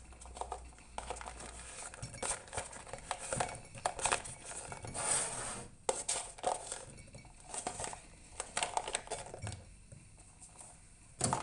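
Light clinks and rattles in a jar as black raisins are added to roasted mixed nuts, with a brief rustle about five seconds in.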